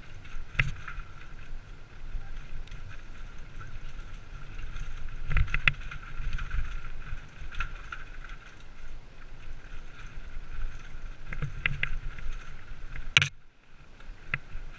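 Downhill mountain bike ridden over a rough, rocky dirt trail: wind rumble on the helmet-mounted camera's microphone with the bike rattling and knocking over the bumps, and one loud clack about 13 seconds in.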